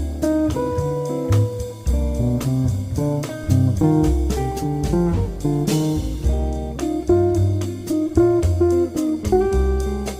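Background music: a plucked guitar playing a jazzy tune over a bass line, with a steady beat.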